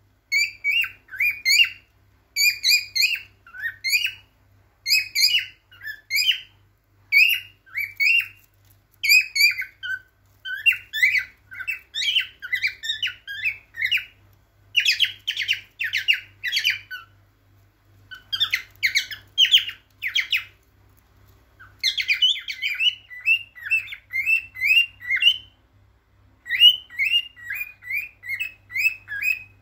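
Male cockatiel singing its courtship song: runs of short, quick whistled chirps repeated in phrases, with a couple of harsher, rasping stretches about halfway through and brief pauses between phrases.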